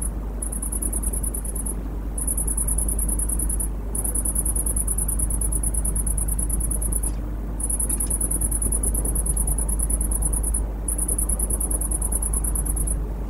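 Crickets trilling at a high pitch in long, fast-pulsing bouts broken by short pauses every few seconds, over a steady low hum.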